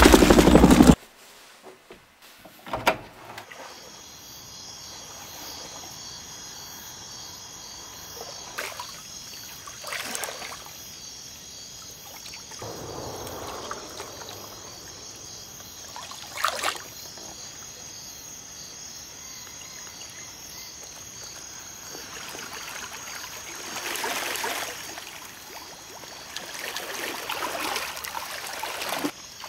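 Water splashing and sloshing as a person wades knee-deep through a reedy stream, in several separate bouts that grow longer near the end. Under it is a steady high chirring insect chorus.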